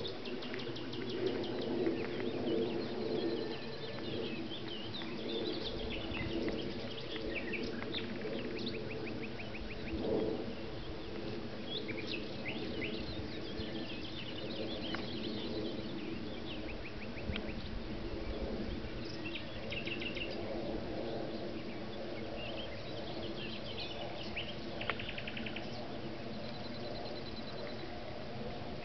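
Songbirds chirping and trilling throughout, over a low steady hum.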